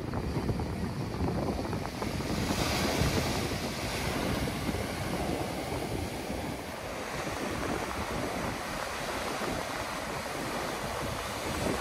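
Pacific surf breaking on rocks and washing up a sandy beach: a steady rush of waves that swells a little about three seconds in.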